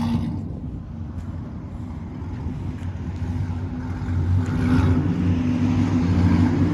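2015 Chevy Silverado's 6.2-litre V8 idling through long-tube headers, high-flow cats and a Borla ATAK dual exhaust: a steady, deep exhaust rumble that grows louder over the last few seconds.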